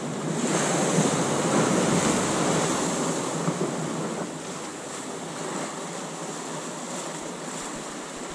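Ocean waves washing against rocky shore, one surge building about half a second in and easing off after a few seconds into a steady lower wash.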